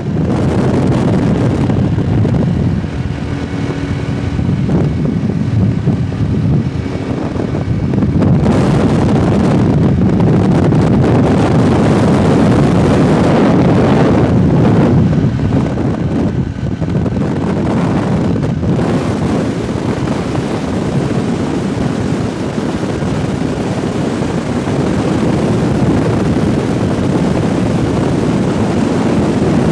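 Quad bike engine running steadily at road speed, with wind rushing over the microphone.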